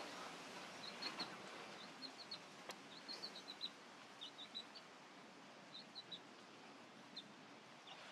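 Faint, short, high-pitched bird chirps in small quick groups of two to four, recurring every second or so over a quiet hiss.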